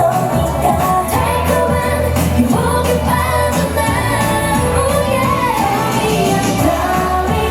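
Live K-pop performance: female voices singing over an amplified pop backing track with a steady beat.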